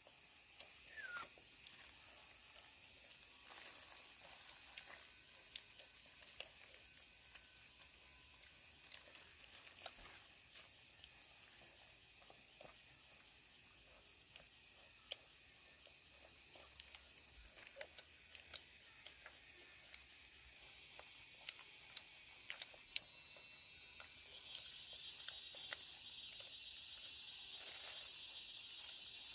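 Steady chorus of insects and frogs, a high-pitched rapidly pulsing trill throughout; a second, lower trill joins near the end, with a few scattered small clicks.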